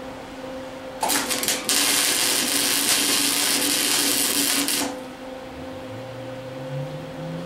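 Lincoln Handy MIG welder arc laying a tack: it sputters on about a second in, then crackles steadily for about three seconds and cuts off. The welder has been sparking more than welding, which the owner puts down to the machine being worn out.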